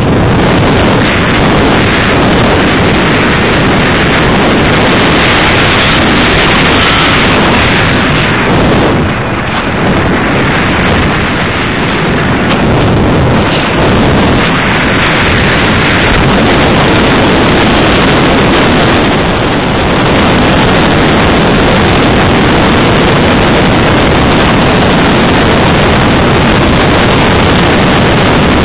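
Loud, distorted rushing of airflow over the microphone of a camera carried on a ParkZone Radian RC glider in flight, a steady noise with no clear motor tone.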